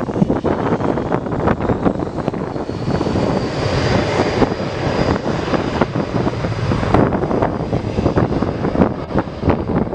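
Boeing 727-200's Pratt & Whitney JT8D turbofans rumbling past, with a high turbine whine that swells in about three seconds in and fades a few seconds later. Wind buffets the microphone throughout.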